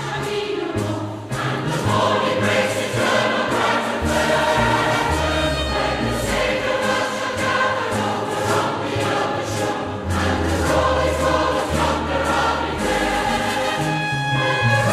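Choir singing a gospel hymn over an accompaniment with deep bass notes and a steady beat.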